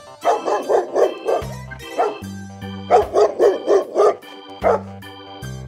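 Large dog barking in two quick runs of barks, each followed by a single bark, over background music with low bass notes.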